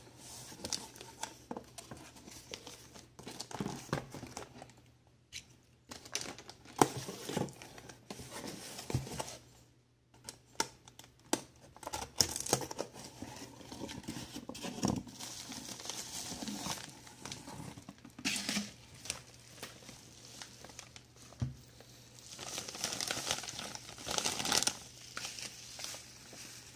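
Packaging being opened and handled: a cardboard box's flaps moved about, bubble wrap and a clear plastic bag crinkling, with scattered taps and knocks. The crinkling grows denser near the end as the bagged figure is handled.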